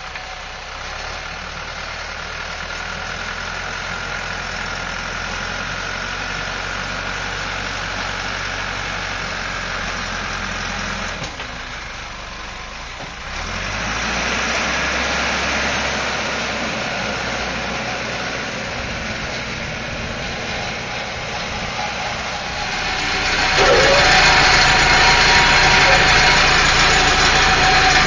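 Caterpillar 416C backhoe's Perkins turbo-diesel engine running. It drops off briefly about 11 seconds in, then rises and works harder from about 13 seconds, and louder still from about 23 seconds, as if under load.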